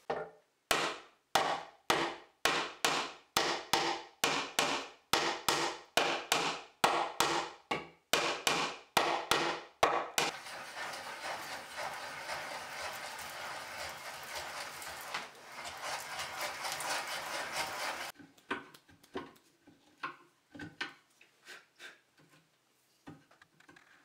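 Claw hammer driving wooden pegs into drawbored joints in a pine frame, about two strikes a second for some ten seconds. Then a hand brace and bit boring into wood gives a steady rasp for about eight seconds, followed by light scattered taps.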